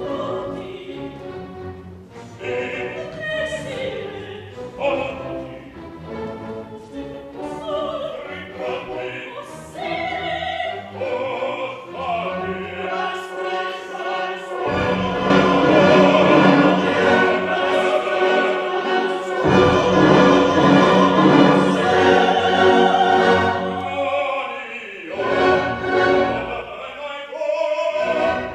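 Live opera: solo singers with chorus and orchestra, swelling to a loud full ensemble about halfway through.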